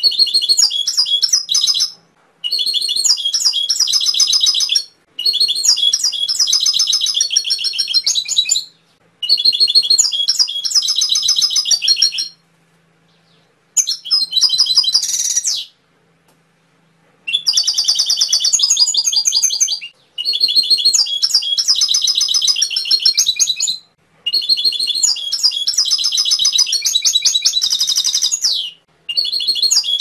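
Domestic canary singing: phrases of fast, high trills and chirps, each two to four seconds long, broken by short pauses, with a longer break about halfway through.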